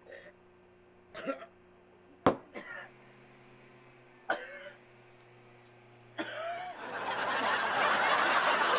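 A man choking on an apple, with a few short coughs and gasps, one of them sharp and loud. Near the end, loud crowd noise of laughter and chatter swells in and holds.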